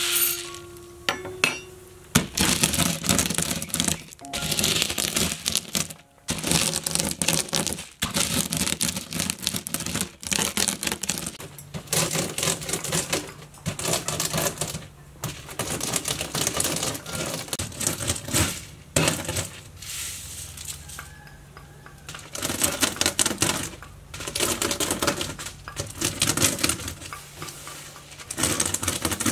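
Small dried beans rattling against a woven bamboo tray as they are scooped and rubbed between the hands, in bursts of a second or two with short breaks.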